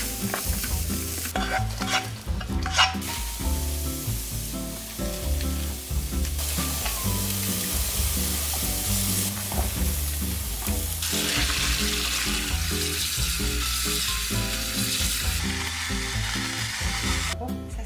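Food sizzling and frying in a hot pan as it is stirred, with a few clicks of a utensil against the pan in the first seconds, over background music.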